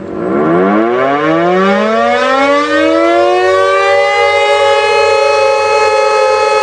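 Civil defense siren winding up: a chord of tones starts low and rises in pitch over about four seconds, then holds a steady, loud wail.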